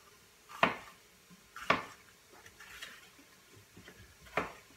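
Chef's knife cutting up a green bell pepper on a cutting board: a few sharp knocks of the blade against the board, unevenly spaced, with fainter cuts between.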